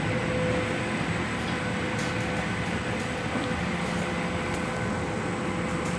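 Industrial washing machine running: a steady mechanical hum with a constant whine, and a few faint ticks.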